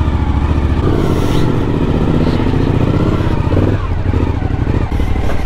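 Suzuki V-Strom 1050XT's V-twin engine running as the motorcycle pulls away at low speed, its note rising a little about a second in.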